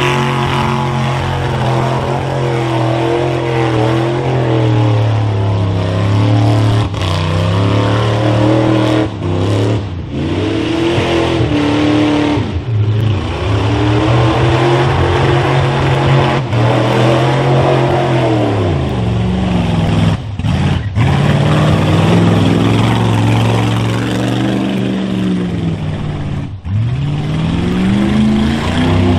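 Old pickup truck's engine revving hard while its wheels spin through deep mud. The engine pitch sags and climbs again several times as the throttle is let off and opened back up.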